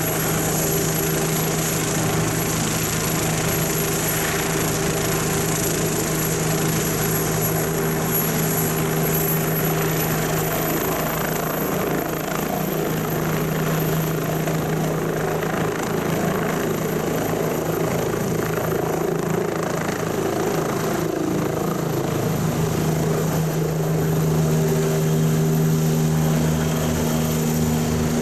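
Bell 429 twin-turbine helicopter lifting off: steady turbine whine and rotor noise, the high whine rising in pitch about ten seconds in as power comes up for lift-off. A little louder near the end as it climbs toward and over the listener.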